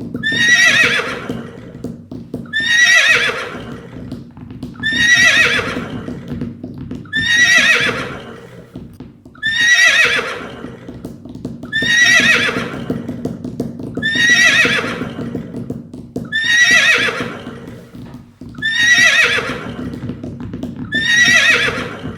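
Horse whinnying over and over, about every two seconds, each neigh starting high and falling in pitch, over a steady low background.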